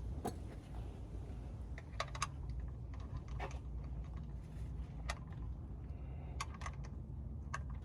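Irregular sharp clicks of a socket and ratchet being handled, about a dozen in all, over a steady low hum.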